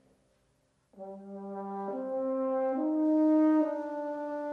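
Solo horn playing a slow rising call alone: after about a second of silence, four held notes, each higher than the last, about a second apart. The third note is the loudest.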